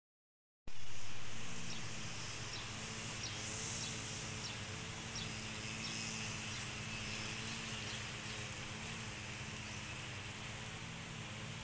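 Outdoor garden ambience that cuts in abruptly under a second in: a steady low machine hum over an even hiss, with a scatter of faint, short, high chirps.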